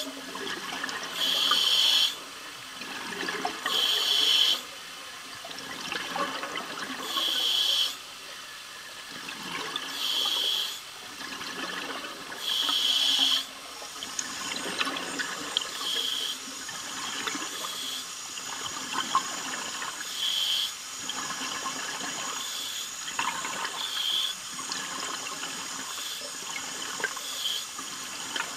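A diver breathing underwater through a demand regulator: a hissing inhalation about every two and a half to three seconds, with the bubbling of the exhaled breath between. The breaths grow fainter about halfway through.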